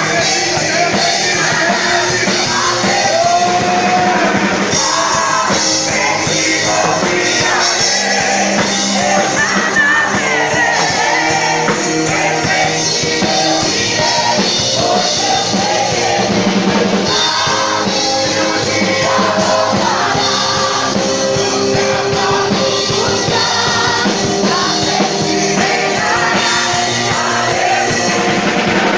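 Loud rock music with a singing voice over a full band.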